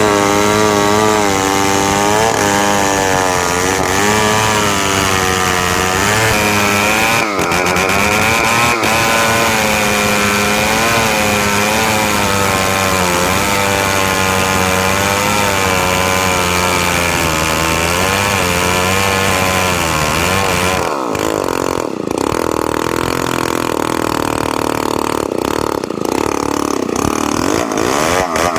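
Petrol chainsaw running at high revs while cutting through timber, its engine note wavering up and down with the load. About two-thirds of the way through, the steady note gives way to a rougher, noisier sound with brief breaks.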